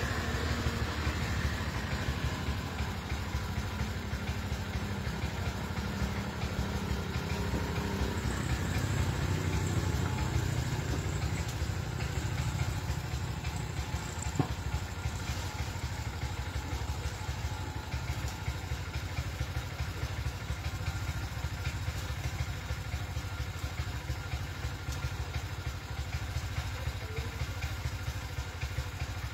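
Small engine running steadily at an even speed, with a single sharp knock about halfway through.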